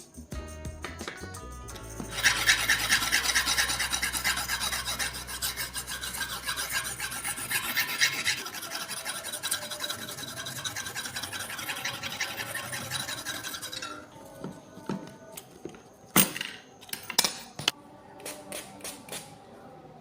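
A knife blade being rubbed back and forth against an abrasive sharpening surface in quick, rapid scraping strokes for about twelve seconds. After the strokes stop come a few sharp knocks and lighter taps.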